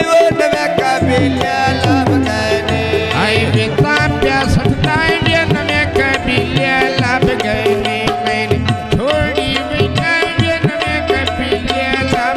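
Punjabi goon mahiye folk music: steady tabla drumming under a melody, with some sliding, voice-like notes.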